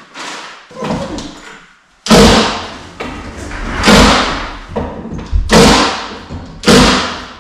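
Impact driver driving screws into plywood floor underlayment: four short bursts, each starting abruptly and fading, with a pit-crew tire-change sound.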